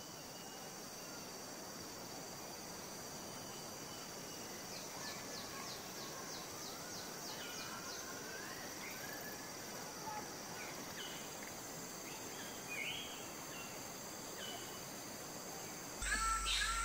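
Tropical rainforest ambience: a steady high drone of insects with scattered bird calls. There is a rapid series of short high notes about five seconds in, then short whistles and chirps. Near the end the ambience turns suddenly louder, with repeated calls.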